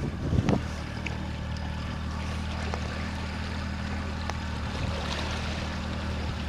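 A motorboat's engine running steadily at slow speed, after a short louder surge about half a second in, with wind buffeting the microphone.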